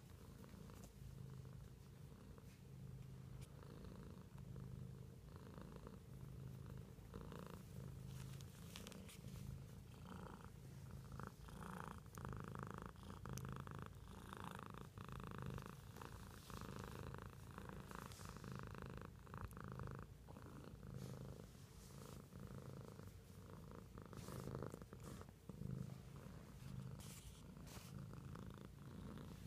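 Domestic cat purring softly and steadily in an even in-and-out pulse, a contented purr while it is being scratched on the head and chin.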